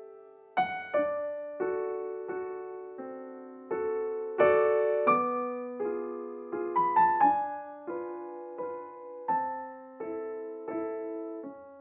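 Background piano music: a slow, gentle melody of single struck notes and soft chords, each note left to fade.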